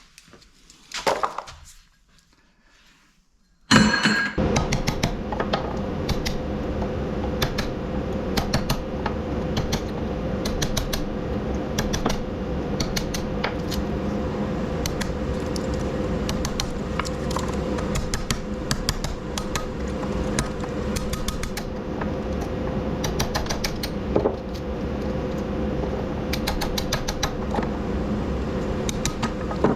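A power tool starts abruptly about four seconds in and runs steadily with a low hum, while metal parts clink and rattle many times over it.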